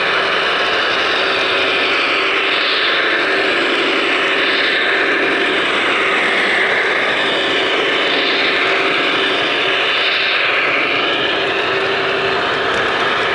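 Sound decoders in HO scale Broadway Limited Imports Paragon 2 GE AC6000 model diesel locomotives playing a steady diesel engine drone as the locomotives pass close by. The sound swells several times, about every two seconds, as each unit goes past.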